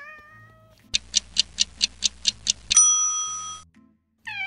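A domestic cat gives a short meow. Then comes a title-card sound effect: about nine quick ticks, roughly five a second, ending in a single bright bell ding that rings out for about a second. Near the end another meow, falling in pitch, begins.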